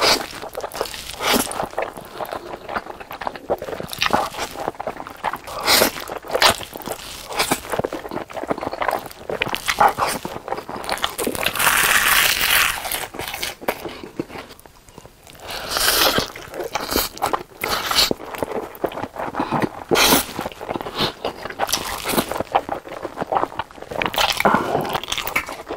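Close-miked eating: slurping black-bean-sauce noodles and chewing with wet smacks and irregular crunches. A denser crackling stretch comes about twelve seconds in, as roasted seaweed is bitten and chewed.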